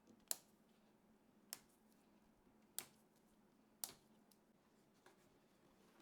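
Four sharp clicks about a second apart, with a fainter fifth near the end: small hard computer parts or fittings clicking as a PC is assembled.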